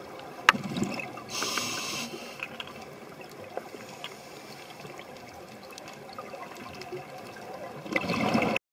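Muffled underwater sound picked up through a camcorder's waterproof housing: a hiss of air bubbles rises about 1.5 s in, and a louder gurgling rush of bubbles comes near the end, then the sound cuts off suddenly. A few sharp clicks are heard in between.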